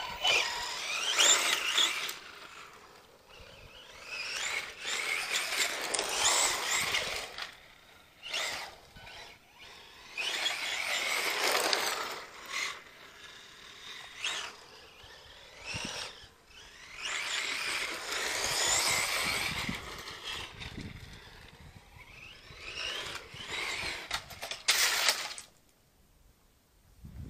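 Electric RC buggy's 3000kv brushless motor and belt drive whining in repeated high-pitched bursts that rise and fall in pitch as it speeds up and slows, with the noise of tyres on gravel.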